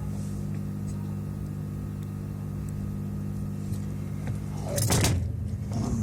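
A steady low electrical or motor hum made of several held pitches, with a brief loud rush of noise about five seconds in.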